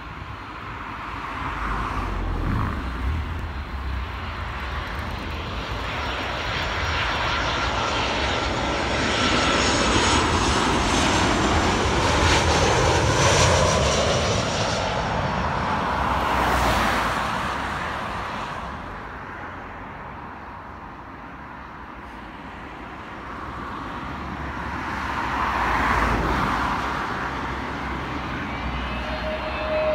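Norwegian Boeing 737-800's CFM56 jet engines on final approach, passing low overhead: a jet rumble and rush with a high whine that swells to its loudest about midway, then fades. Near the end, a second airliner, an Airbus A320neo, is heard approaching, and a steady whine starts.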